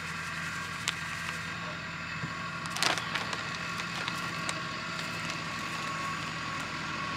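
Plastic bag of dry fishing groundbait rustling and crinkling as it is poured into a bowl and handled, with a short crinkle about three seconds in and a few light clicks. A steady low mechanical hum runs underneath.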